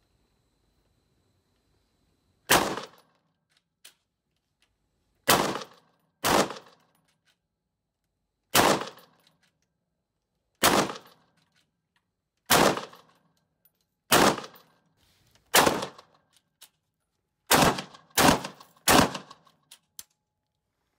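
Eleven single shots from a Maxim PM 1910 water-cooled heavy machine gun in 7.62×54R, converted to semi-automatic single fire. The shots are fired one at a time at uneven intervals, mostly a second or two apart, with a quicker run of three near the end. Each shot is followed by a short echo off the walls of an indoor range.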